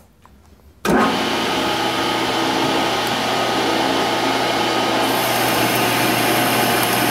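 Metal lathe running under a turning cut on a steel DOM tube: a steady machine hum with gear whine that starts suddenly about a second in, with a high hiss joining about five seconds in. The cut breaks its chips and leaves a good surface finish.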